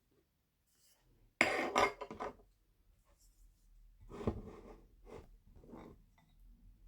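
Kitchen containers and a utensil handled while mixing a conditioner: a loud clatter about a second and a half in, then softer scraping and knocking.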